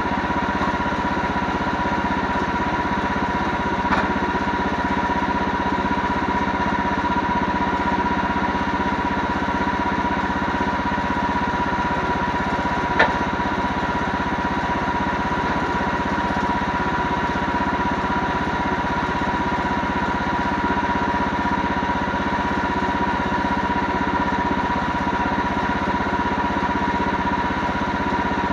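Engine running steadily at constant speed, with a steady high whine over it and a couple of light clicks, the sharper one about halfway through.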